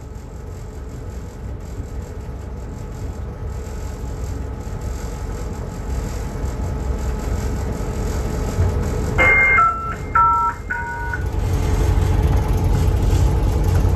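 Train running with a steady low rumble, and a locomotive horn sounding three short blasts about nine seconds in. The rumble grows louder shortly after the horn.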